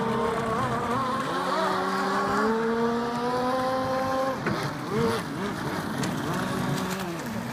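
Small motorboat engine running with a steady hum that slowly rises in pitch, wavers, then drops near the end.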